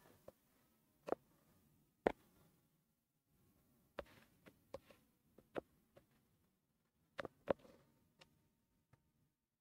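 About a dozen short, sharp clicks at irregular intervals, several in quick pairs, over faint room tone.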